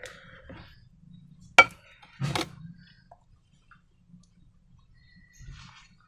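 A sharp tap about one and a half seconds in, then a short cluster of clinks and knocks, with faint rustling near the end: things being set down and handled on a tabletop while slime is made.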